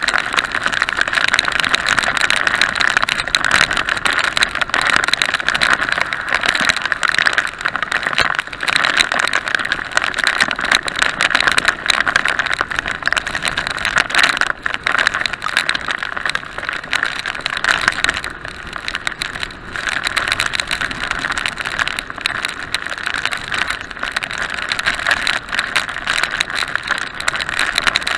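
Steady rush of wind and rain noise on a motorcycle-mounted action camera as a BMW R850R is ridden at road speed through heavy rain, dipping briefly about two-thirds of the way through.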